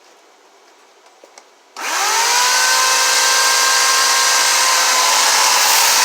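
Electric power tool starting up about two seconds in, its motor whine rising quickly to full speed and then holding steady and loud while it cuts a ring into the log.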